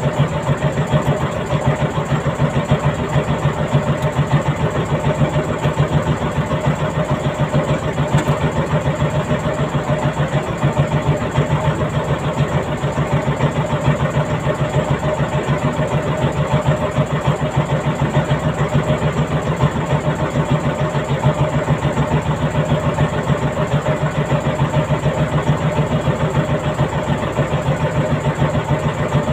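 A trawl fishing boat's engine running steadily with an even pulsing beat.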